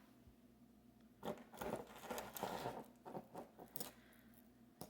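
Rustling and a few small clicks of costume jewelry being handled and sorted, with a burst of rustling from about one to three seconds in.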